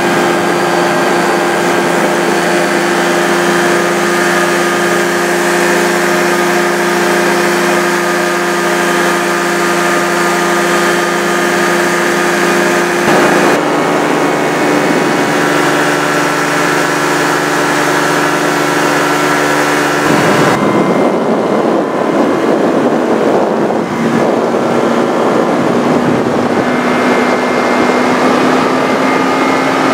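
Powered parachute's engine and propeller running steadily in flight, a loud drone with several steady tones. Its sound changes abruptly twice, about thirteen and about twenty seconds in, and the pitch rises slightly near the end.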